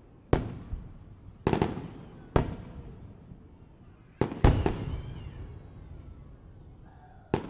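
Aerial fireworks shells bursting: about six sharp booms at uneven intervals, each followed by an echoing tail, the loudest a little past halfway.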